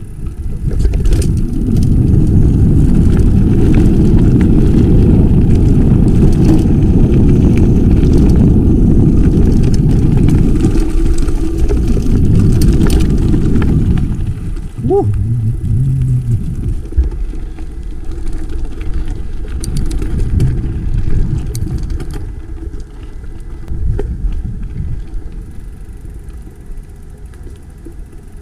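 Wind rumbling over the microphone of a camera carried on a moving bicycle. It is loud and steady for about the first half, then drops and comes and goes in gusts.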